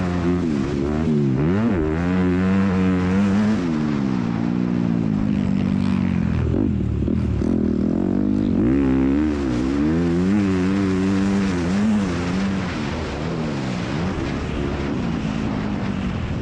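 Honda CRF250R motocross bike engine under racing throttle, its pitch sweeping up and down again and again as the rider opens and closes the throttle and shifts gears, with a few stretches held steadier.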